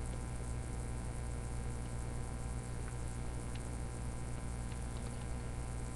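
Steady low hum with an even background hiss, with a few faint ticks.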